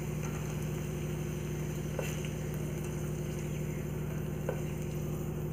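Faint sizzle of cashews and raisins in hot ghee as they are scraped out of a steel pan with a wooden spatula, with two light taps of the spatula. A steady low hum runs underneath.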